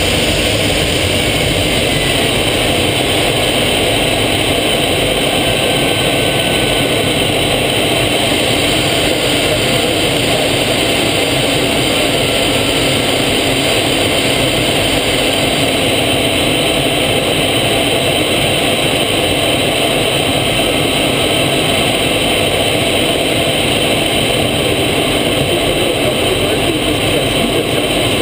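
Steady, loud engine and airflow noise of a small aircraft in flight, heard from inside the cockpit, with a faint steady whine over it.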